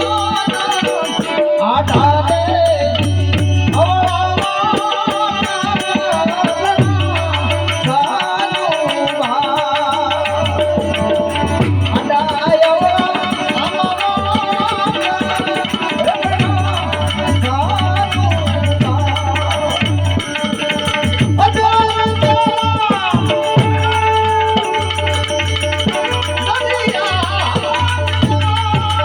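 Gujarati devotional bhajan: a singing voice with a wavering melody over tabla and jingling hand percussion, with a steady low drone underneath.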